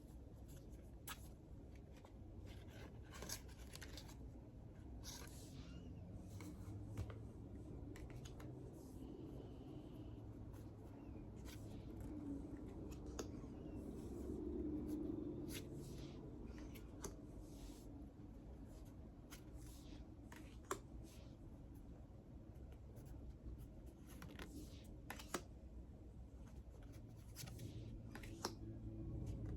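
Tarot cards handled by hand, with scattered soft rustles and small clicks of card stock, over a steady low rumble of noise from outside.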